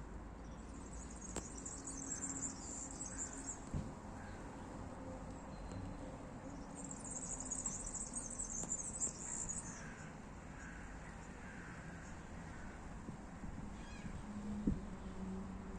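Birds calling: two stretches of high, rapid chattering, with fainter short falling calls lower down.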